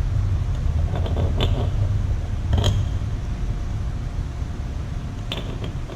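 A steady low hum under a few short sharp clicks, about one, one and a half, two and a half and five seconds in: small differential parts, washers and spider gears, being handled and set into the case.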